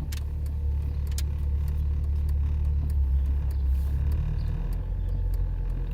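Low steady rumble of a car driving, heard from inside the cabin, with a few faint clicks. The rumble eases a little about four seconds in.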